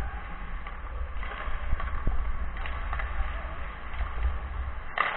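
Ice skates gliding and scraping on a hockey rink, with a steady low rumble from a camera that moves with a skater, and a couple of sharp knocks from play.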